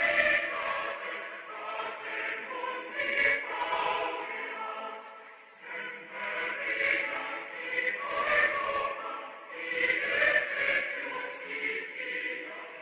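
Choir singing an anthem, sustained sung phrases with a brief lull about five and a half seconds in.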